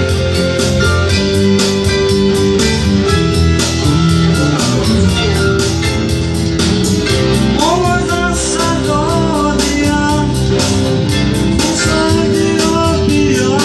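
Live band music with a steady beat and guitar to the fore; a bending melody line comes in about eight seconds in.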